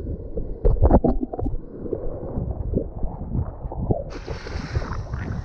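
Small waves washing and splashing around legs in shallow surf, with wind buffeting the action camera's microphone in irregular low thumps. A few sharper splashes come in the first second or so, and a brighter surf hiss sets in suddenly about four seconds in.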